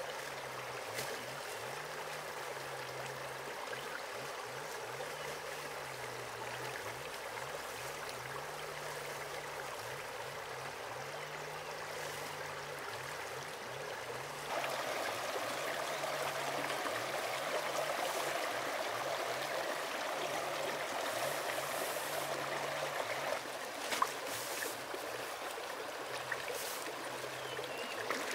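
Shallow stream water running over rocks, a steady rushing that grows louder and fuller about halfway through. A couple of short sharp sounds stand out near the end.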